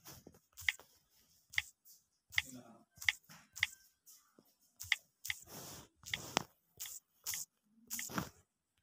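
Irregular taps and clicks on a phone touchscreen while text is typed on its on-screen keyboard, a few of them with a short scuffing tail.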